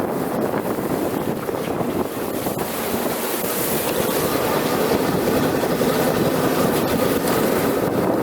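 GAZ-66 truck's V8 engine running steadily as it drives, with wind buffeting the microphone.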